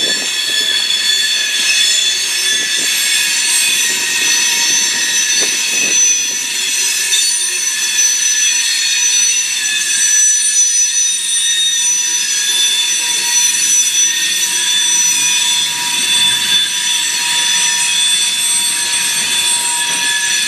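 Freight train of covered hoppers and tank cars rolling past, its wheels squealing in several steady high-pitched tones over the rumble of the cars.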